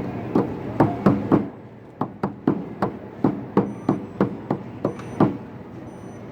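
A quick series of about fifteen sharp knocks, like hammer blows, roughly three a second. There is a short pause after the first four.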